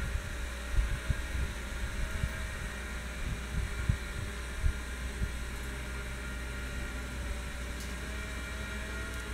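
12-volt electric winch running steadily, lowering the hinged tower, heard as a faint continuous hum. Several low rumbling thumps in the first half are wind gusting on the microphone.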